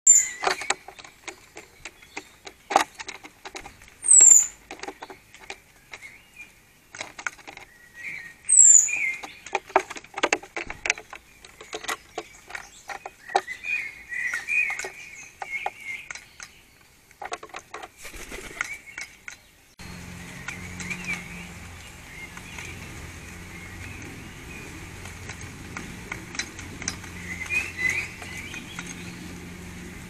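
Birds calling: a run of short, sharp calls or taps, with a few loud, thin, high chirps that drop in pitch. About two-thirds of the way through, a steady low hum comes in under continued chirping.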